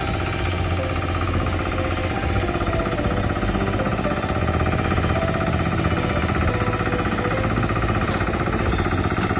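Two-wheel hand tractor's engine running steadily under load as it works through a flooded, muddy rice paddy, with a few sharp clicks near the end.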